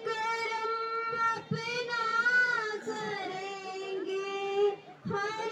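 Girls' voices singing a Hindi patriotic song into microphones, held notes that waver in pitch, with a brief break about five seconds in.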